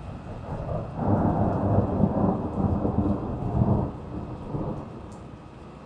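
A roll of thunder: a low rumble that swells about a second in, rolls on for about three seconds and fades away, over steady rain.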